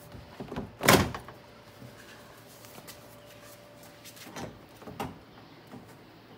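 A door card (interior door panel) being pressed onto a 1974 Corvette door: one loud thump about a second in, then two softer knocks of the panel against the door near the end.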